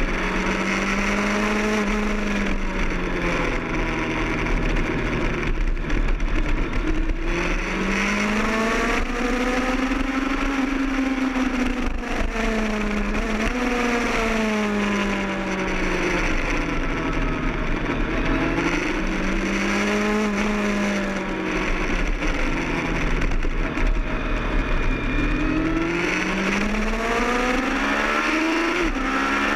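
Sport motorcycle engine heard onboard at track speed, its pitch rising and falling smoothly again and again as the throttle is opened and closed through the corners, over a steady rush of wind.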